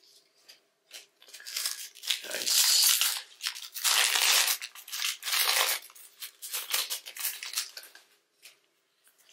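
Foil wrapper of a Panini Mosaic trading-card pack being torn open and crinkled: a run of loud ripping and crinkling rustles starting about a second in, loudest in the middle and thinning out near the end.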